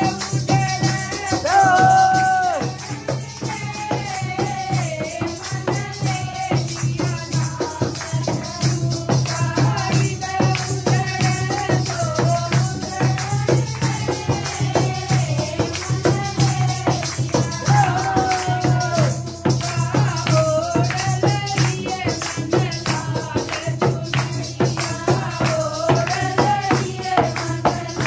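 Women singing a devotional kirtan song, accompanied by shaken, jingling hand percussion that keeps a fast, steady beat.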